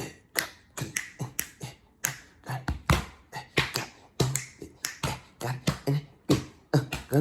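Beatboxing: a mouth-made beat of sharp clicks and snare-like hits mixed with short bass thumps, about three or four hits a second in a steady rhythm.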